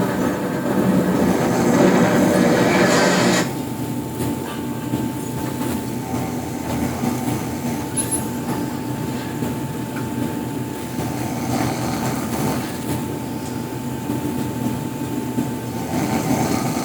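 A man snoring in his sleep: one long, loud, rasping snore lasting about three seconds at the start, then softer snores later on, over a steady high-pitched hum.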